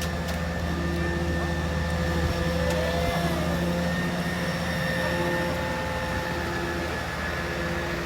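A motor running steadily: a constant low hum with several steady tones above it, and a brief rising-and-falling tone about three seconds in.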